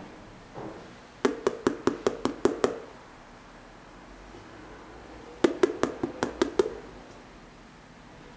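Fingers tapping quickly, about five taps a second, in two runs of seven or eight taps a few seconds apart. A soft handling sound comes just before the first run.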